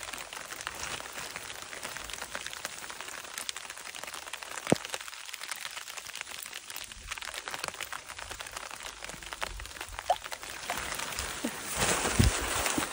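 Rain pattering close by, a steady hiss of noise dotted with many sharp drop ticks, with a louder rush of noise near the end.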